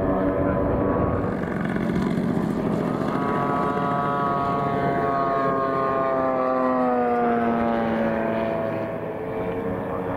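Propeller engine of a large radio-controlled model warplane running in flight, then a Junkers Ju 87 Stuka model's engine note falling slowly as it is throttled back to land. It settles to a lower, quieter run near the end as the model rolls out on the grass.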